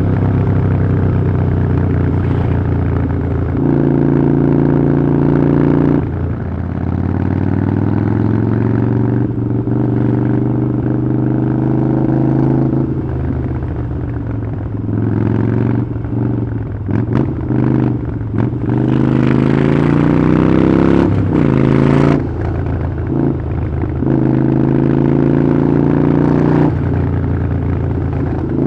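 Harley-Davidson Iron 883's air-cooled V-twin running through a Vance & Hines exhaust while being ridden. The engine note holds steady for stretches and rises and falls with throttle and gear changes, turning choppy with short on-off throttle blips in the second half.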